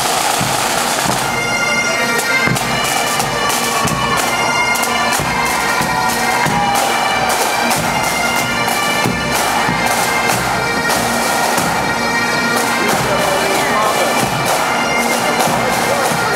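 Pipe band playing a march: massed Highland bagpipes sounding a tune over their steady drones, with a regular drum beat underneath.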